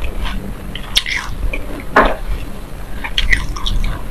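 A person chewing a mouthful of dry black and white sesame seeds: irregular crunching and wet mouth sounds, with a few sharp clicks about a second in and near the end.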